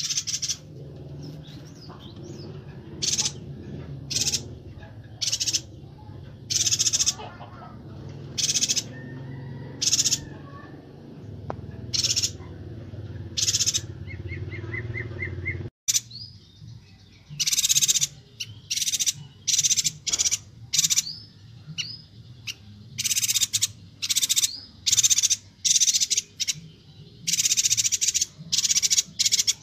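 Yuhina (perenjak batu) giving short, high-pitched calls in quick succession, repeated every second or so. There is a brief break about halfway, after which the calls come thicker and faster.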